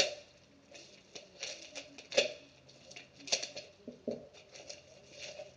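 Packaging being handled and opened: irregular crinkling and rustling with a few sharp clicks and knocks, the loudest right at the start and about two and three seconds in.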